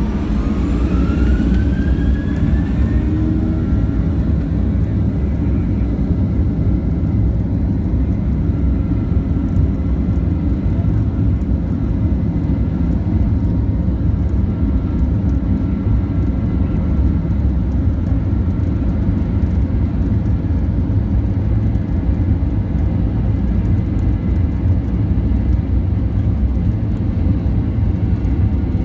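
Boeing 737-800's CFM56-7B turbofan engines spooling up to takeoff thrust, heard from the cabin over the wing: a rising whine over the first few seconds, then steady loud engine noise with a strong low rumble as the plane accelerates down the runway.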